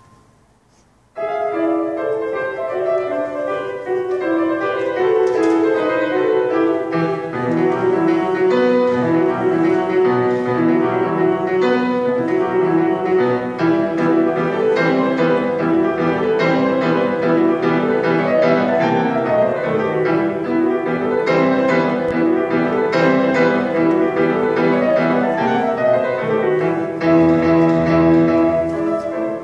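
Grand piano played solo: after a brief pause, a continuous passage of notes starts about a second in and runs on without a break.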